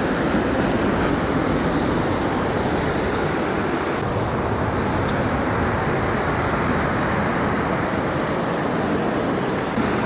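Ocean surf breaking on the shore, a steady, even roar.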